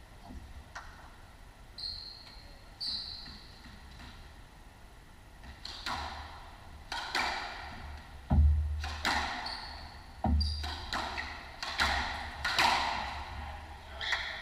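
Squash rally on a hardwood court: the ball is struck again and again, cracking off racket and walls, with two heavy thuds of the ball hitting a wall about eight and ten seconds in. Sneakers squeak sharply on the wooden floor, twice early on while the players stand between points, then among the shots.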